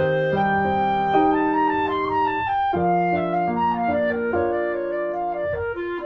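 Instrumental background music: slow, held melody notes moving step by step over a sustained bass note.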